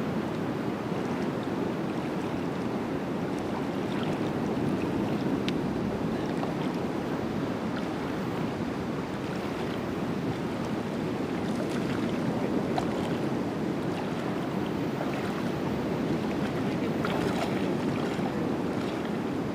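Steady rushing of wind and water, with a few faint ticks.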